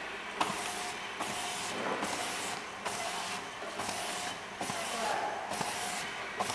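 Fully automatic round-bottle labeling machine running with glass jars on its conveyor: a short hiss, each opening with a click, repeats a little more than once a second, one for each label fed out and wrapped onto a passing jar, over the steady hum of the conveyor.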